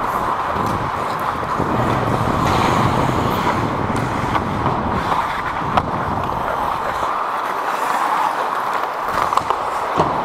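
Ice hockey play on the rink: skate blades scraping and gliding on the ice with a steady rush of noise, scattered sharp clicks of sticks and puck, and a low rumble of air over the microphone that eases off near the end.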